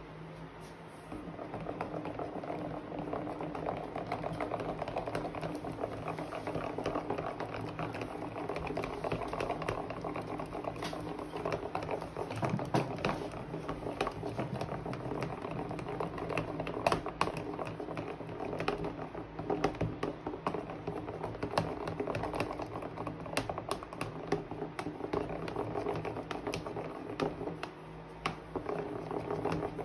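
Thick, sticky slime being stirred and folded in a plastic tub, giving a dense, continuous run of small wet crackles and pops that starts about a second in.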